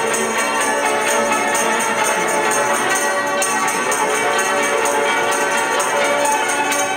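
Ensemble of Chinese hammered dulcimers (yangqin) playing a fast piece, struck with hammers, with a tambourine jingling along to the beat.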